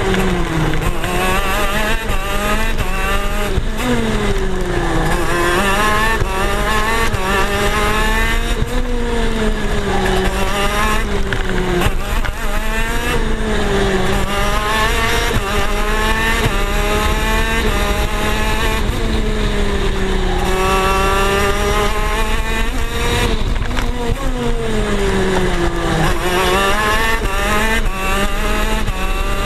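Onboard sound of a KZ shifter kart's 125cc two-stroke engine racing, its pitch climbing hard under acceleration and falling away into corners, over and over through the lap.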